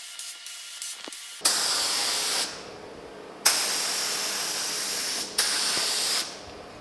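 Compressed-air paint spray gun spraying base coat in three bursts of hiss, each starting sharply as the trigger is pulled. The first burst lasts about a second and the next two about two seconds and one second.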